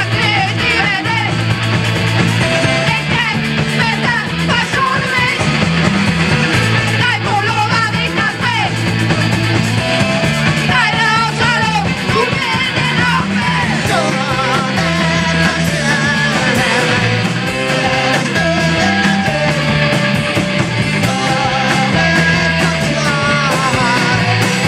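A rock band playing live and loud: drums, electric guitar and bass, with a singer's voice over them.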